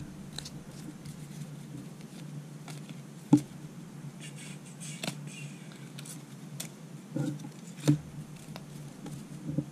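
Trading cards being flipped and slid one after another by hand, a scatter of soft clicks and rustles with two sharper taps, over a steady low hum.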